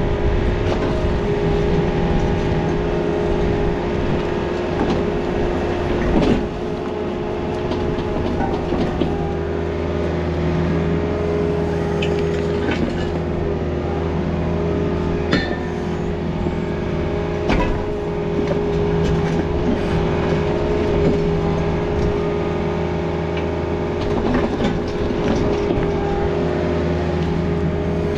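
Takeuchi excavator's diesel engine running steadily with a constant hydraulic whine, heard from the operator's seat, and a few sharp clanks of the bucket and rock, the loudest about six seconds in.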